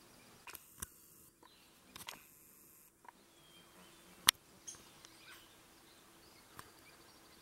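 Handling noise from a small handheld camera: a scattered handful of short clicks and knocks over faint outdoor background, the loudest a sharp click about four seconds in. No coyote calls are heard.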